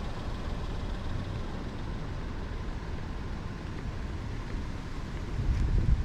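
Steady low rumble and hiss of a car on the move: road and engine noise.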